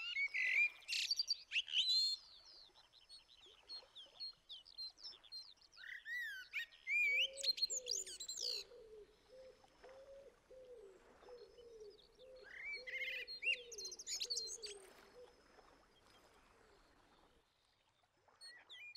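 Songbirds chirping and trilling, with bouts of song in the first two seconds, again around six to nine seconds and around thirteen to fifteen seconds. From about seven seconds in, a low, wavering run of repeated calls goes on underneath, then cuts off suddenly near the end.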